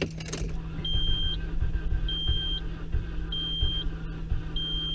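1996 Nissan Sentra's 1.6-litre four-cylinder engine cranking on the starter without catching, turning over slowly and labouring as if the battery were dead. The owner blames a failed coolant temperature sensor making the engine dump so much fuel that the cylinders flood and hydraulic-lock. A dashboard warning chime beeps about every second and a quarter.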